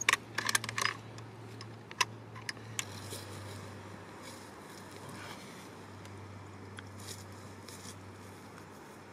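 Close clicks, knocks and rustles of a camera being handled and set down, with a sharp click about two seconds in, then a steady low hum with faint rustles.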